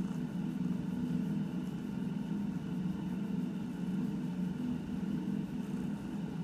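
Domestic cat purring steadily, a continuous low rumble, while it is scratched under the chin.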